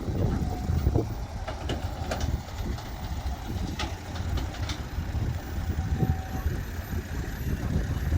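Heavy diesel machinery running at low revs during a road roller offload, a steady low rumble with a few faint clicks and knocks.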